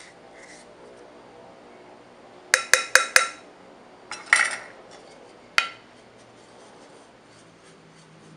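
A measuring cup knocked four times in quick succession against the rim of a glass mixing bowl, each clink ringing briefly. A louder clatter follows about a second later, then one more knock, then the faint scratch of a wooden spoon stirring dry flour.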